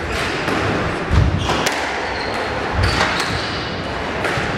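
Squash rally: sharp cracks of the ball off rackets and the court walls, with two heavier low thuds about a second in and near three seconds.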